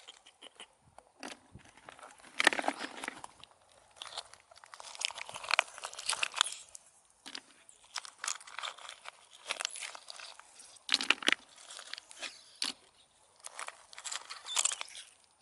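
Irregular crunching and scraping with many sharp clicks, in louder clusters every second or two.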